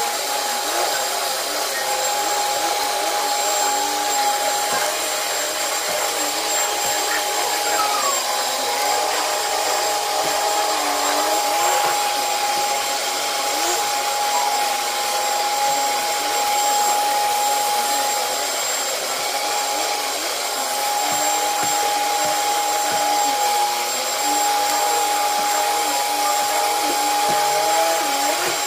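Commercial HEPA vacuum cleaner running steadily over carpet: a constant high motor whine over the rush of suction, with small wavering shifts in the lower tones.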